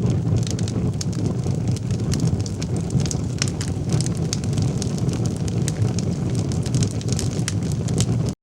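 Fire burning: a steady low rush of flame with frequent sharp crackles and pops, cutting off abruptly at the end.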